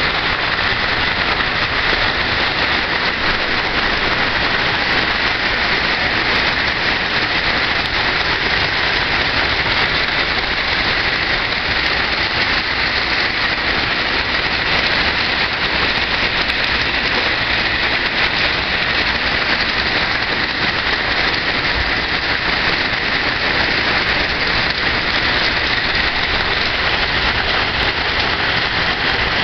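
Heavy rain pouring down steadily: an even, unbroken hiss.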